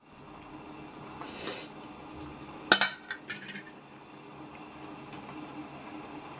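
Pot of dal bubbling on a gas burner, with a low steady hum under it. A short hiss comes about a second in, then a sharp metallic clink near the middle, the loudest sound, followed by two lighter clinks.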